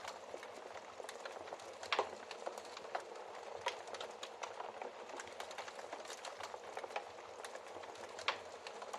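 Wood fire crackling in a fireplace: a steady low hiss studded with many small snaps and pops, the loudest pops about two seconds in and near the end.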